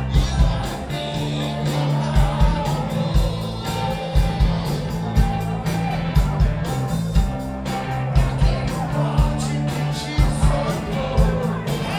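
Rock band playing live: electric guitars and drums keeping a steady beat, with a singer's voice over the band.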